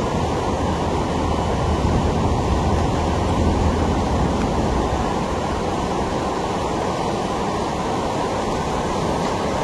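Muddy floodwater rushing through a street: a steady, deep rush of water that never lets up.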